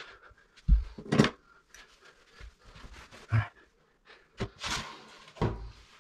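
Scattered knocks and light clatter of hand tools and parts being handled and set down on a tiled floor, with rustling and a couple of heavy breaths.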